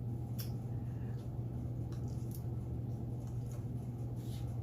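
Steady low background hum with a few faint soft clicks, about one every two seconds.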